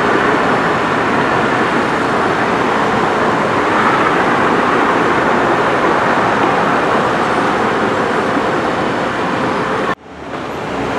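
Steady, loud outdoor background noise with no distinct events, briefly cut off about ten seconds in before resuming.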